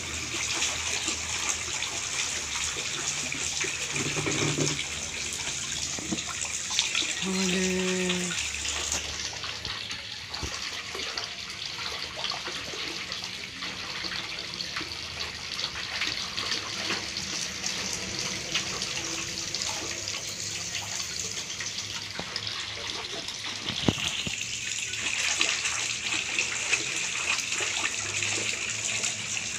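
Water splashing and sloshing in a large aluminium basin as a toddler slaps and swishes his hands in it, with a couple of short child vocal sounds about 4 and 7 seconds in.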